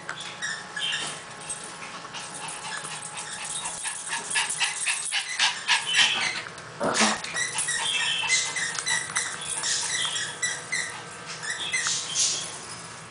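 Small dogs sniffing and scrabbling about on a hardwood floor, their claws clicking and scratching in quick irregular bursts as they hunt for a mouse, with a few brief squeaky whines.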